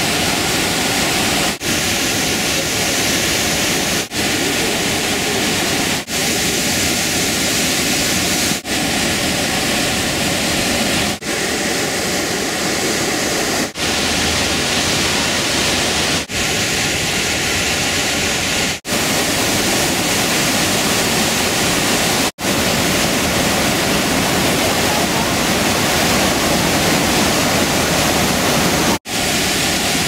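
Large waterfall and the white-water river below it, a steady, loud rush of water broken by brief dips every two to three seconds.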